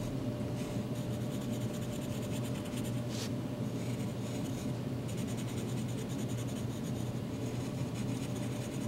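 Wooden graphite pencil scratching on paper in rapid small strokes as small shapes are shaded in, over a steady low hum.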